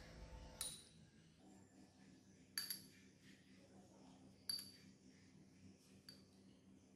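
Metal spoon clinking against a small glass cup and a steel bowl while scooping crumbly rice-flour mixture: four short, faint ringing taps about two seconds apart.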